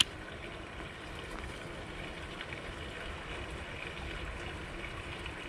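A sharp click right at the start as the baitcasting reel is engaged after the cast, then steady wind and water noise with faint ticking while the reel is wound in.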